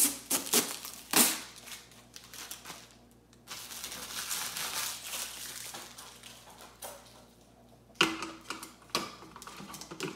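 Plastic bag crackling and crinkling as it is pulled off the clear plastic water tank of a Nespresso Vertuo Plus, with a longer stretch of steady crinkling in the middle. Light clicks and knocks of the plastic tank being handled near the end.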